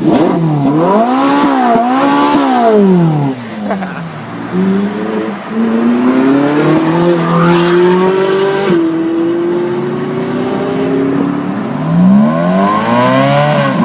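Maserati Quattroporte engine and exhaust revving: two quick blips up and down, then revs climbing slowly and held for several seconds, then another rise near the end.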